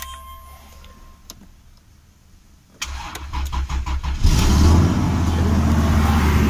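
Toyota 1JZ-GE inline-six being jump-started off a dead battery. The starter cranks rhythmically for about a second and a half, then the engine catches about four seconds in and settles into a steady idle.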